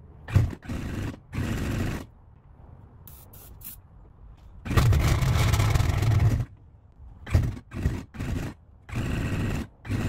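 Kawasaki STX-R 1200 jet ski's two-stroke triple engine cranked on its starter in repeated bursts, catching briefly on starter fluid and dying each time. The longest run is about a second and a half, near the middle. It will not keep running because no fuel is reaching it: the fuel selector is off.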